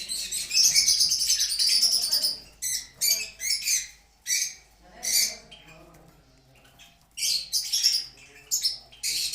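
Caged finches chirping and twittering: a dense burst of chatter at first, then scattered calls, a short lull past the middle, and more chatter near the end.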